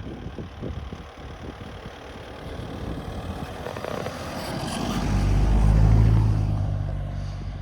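A motor vehicle drives past. Its engine noise, with a steady low pitch, swells to a peak about six seconds in and then fades, after a few seconds of irregular low rumbling.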